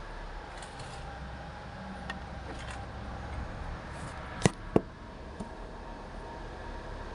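Steady whoosh and hum of a car's rear air-conditioning blower inside the cabin, with a low rumble. Two sharp clicks come a moment apart near the middle.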